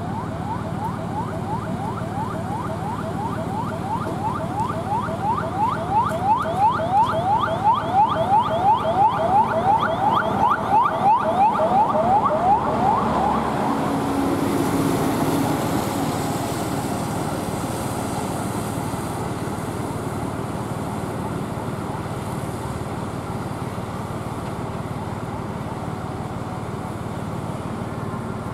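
A vehicle siren sounding in quick, repeated rising sweeps, about two a second, swelling louder in the middle and cutting off about thirteen seconds in. A steady engine rumble runs underneath throughout.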